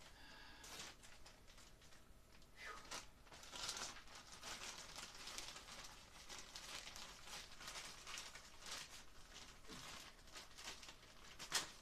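Faint crinkling and rustling of a clear plastic bag being handled, in irregular crackles, with one sharper click near the end.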